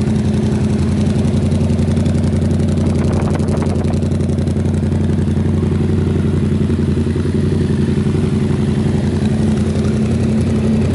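Yamaha MT-07's 689 cc parallel-twin engine idling steadily through a freshly fitted hand-made exhaust.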